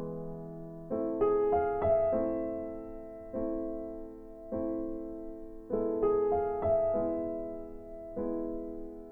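Background piano music: soft chords struck about once a second, each one ringing and fading before the next.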